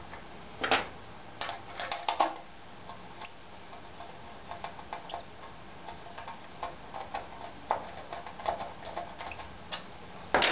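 Small metal clicks and taps of an Allen key and bolts working against a G10 sub-bed plate on a wooden workbench, with a few louder clacks about a second and two seconds in and a sharp clack near the end.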